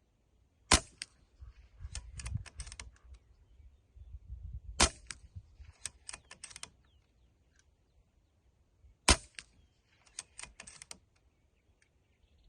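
Brocock Ghost .25-calibre PCP air rifle firing three shots about four seconds apart, each a sharp crack followed by a quick run of smaller clicks.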